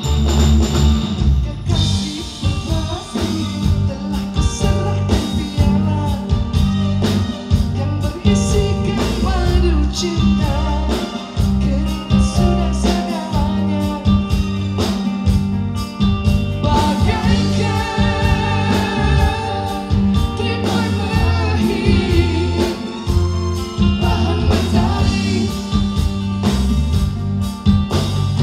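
A live pop band plays through a PA system: keyboard, electric guitar and drum kit under a woman singing into a microphone, her voice wavering in vibrato on held notes.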